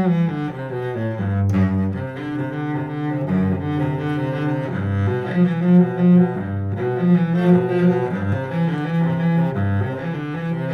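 Strunal Schönbach 'Bern' 4/4 cello, a spruce-top, maple-back concert cello strung with Thomastik Alphayue strings, being bowed solo through a melodic passage of sustained notes in its low and middle register.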